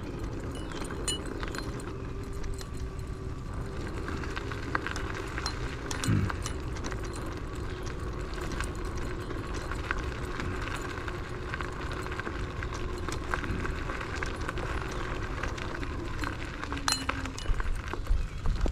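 Varla Eagle One electric scooter under way: a steady hub-motor whine over wind and road rumble, with frequent small clicks and rattles. A short falling tone sounds about six seconds in.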